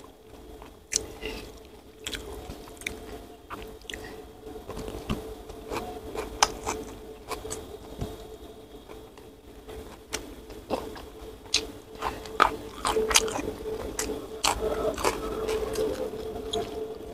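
Close-up eating sounds: a person chewing and crunching mouthfuls of rice and side dishes eaten by hand, with many sharp wet clicks and smacks. The chewing grows busier and louder near the end.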